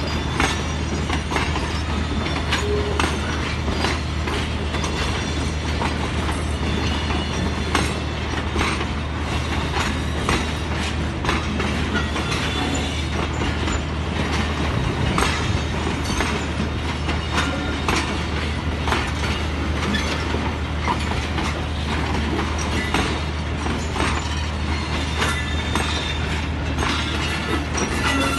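Passenger train rolling slowly into the station, its wheels clicking and clanking over rail joints again and again above a steady low rumble.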